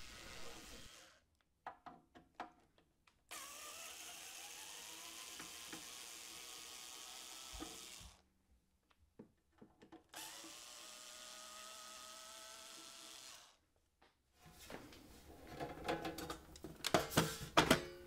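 Cordless electric screwdriver running twice, for about five and then three and a half seconds, backing out a cassette deck's cover screws; its whine rises as the motor spins up, then holds steady. Near the end, knocks and clatter from the metal cover being lifted off.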